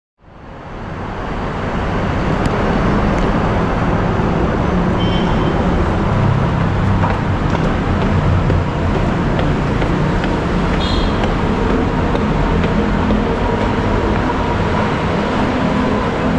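MRT-3 light-rail train running, a steady rumble and hiss that fades in over about two seconds, with scattered small clicks and squeaks.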